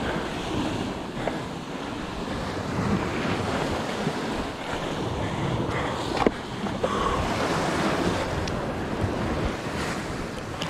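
Sea waves washing against the rocky shore, with wind buffeting the microphone in a steady rushing noise. A brief sharp knock about six seconds in.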